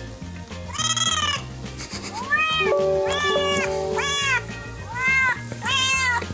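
Domestic cat meowing repeatedly, six meows in a row, each rising and then falling in pitch, over background music.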